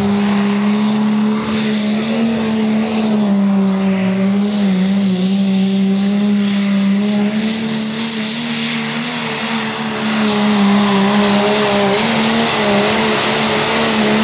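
Case IH Pro Stock pulling tractor's diesel engine running flat out under load during a pull, one steady high engine note that wavers only slightly.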